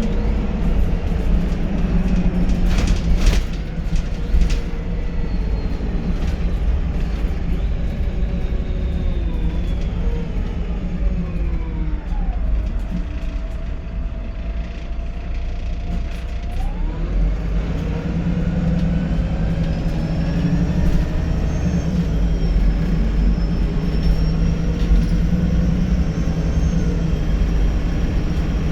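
VDL SB200 single-deck bus engine running under way with a quiet turbo whistle. The whistle falls in pitch about a third of the way in as the bus slows, holds low, then rises again as it accelerates. A few sharp clicks come about three seconds in.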